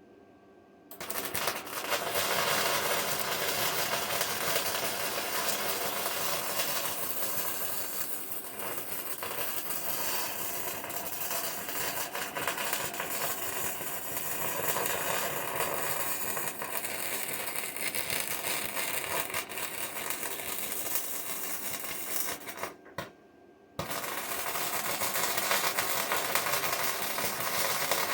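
Electric arc welding on the bucket's steel, a steady dense crackle that starts about a second in, breaks off briefly near the end and strikes up again.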